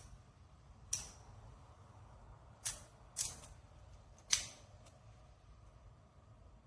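Plastic magnetic building cubes clicking together as they are snapped into place: four sharp, irregularly spaced clicks, the last one loudest.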